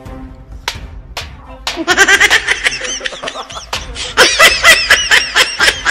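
High-pitched laughter in quick, repeated bursts, starting about two seconds in and running loud to the end. A couple of sharp knocks come before it.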